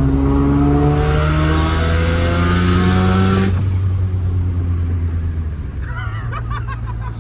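A car engine revving hard, its pitch climbing for about three and a half seconds before the throttle is suddenly released, then running on at a steady lower drone.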